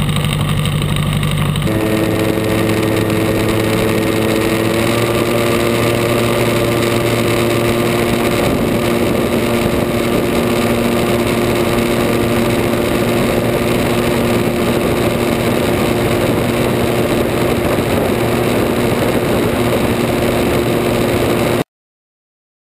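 Gyrocopter engine and pusher propeller running at high power through the take-off run and low climb. It is a steady, loud drone over a constant rush of noise, stepping up in pitch about two seconds in, then holding steady until it cuts off abruptly near the end.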